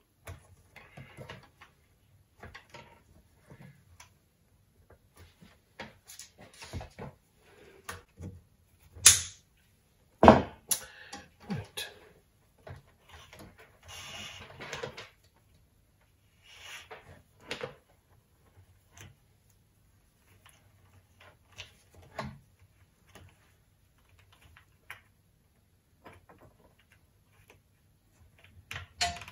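Intermittent handling noise of antenna assembly: the coax cable and black plastic cable clips rustling, clicking and knocking against the aluminium boom, with two sharp knocks about a second apart roughly a third of the way in.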